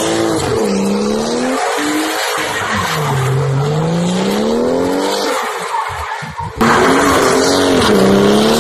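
A car doing donuts with wheelspin on loose gravel: the engine revs rise and fall over and over under a constant rush of spinning tyres. It gets abruptly louder about two-thirds of the way through.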